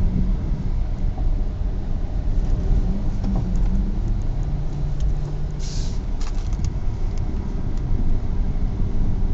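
Nissan Sentra N16 running with a heavy low rumble and scattered, irregular knocks, with a brief hiss about six seconds in. The knocks are the annoying knocking from the front driver's side that the owner is trying to trace.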